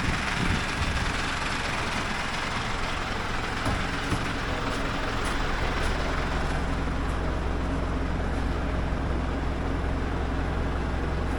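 Engine of a crane-equipped truck running steadily at idle, with a hiss that fades away over the first few seconds.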